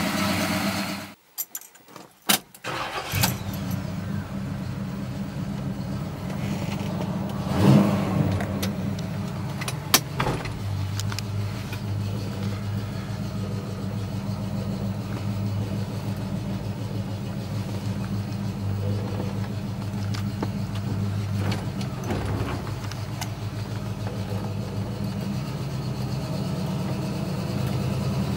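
1970 Pontiac GTO Judge clone's V8 engine running, first idling, then, after a brief drop-out, driving along as heard from inside the cabin. The engine runs steadily, with one short rise in revs about a third of the way through and a sharp click soon after.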